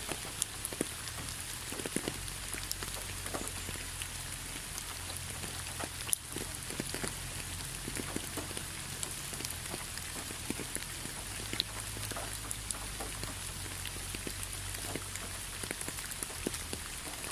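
Steady rain falling in a rainforest, an even hiss with many individual drops ticking against surfaces, over a steady low rumble.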